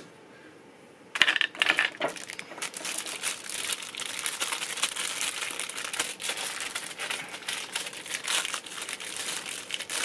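Clear plastic packaging bag crinkling as it is handled and opened to take out a USB-C cable. The crinkling starts about a second in as a dense run of small crackles.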